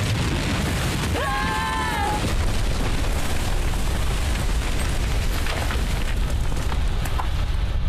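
Cartoon explosion sound effect: a loud, sustained blast with a deep rumble. About a second in comes a short cry of about a second that glides down in pitch at its end.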